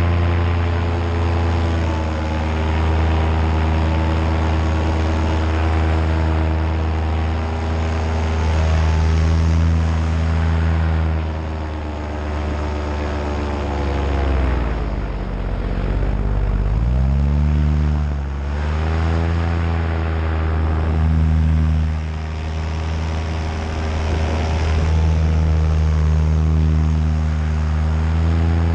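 Nitro 200 paramotor engine and propeller running steadily at flying power. About halfway through the throttle is eased back and the engine note falls away, then climbs back up to the same steady pitch within a few seconds.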